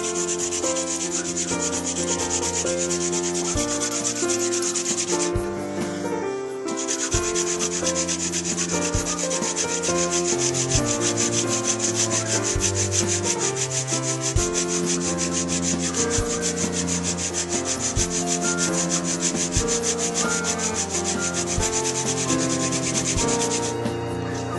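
Friction-fire hand drill: a purple coneflower spindle spun on an arborvitae hearth board, making a steady dry rubbing that breaks off briefly about five seconds in and stops near the end. Background music with held piano-like notes plays underneath.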